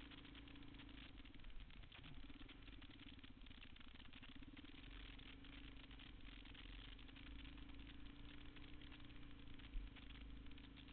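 Motorcycle engine running steadily while riding, heard faintly, its note wavering about two to four seconds in. A single knock near the end.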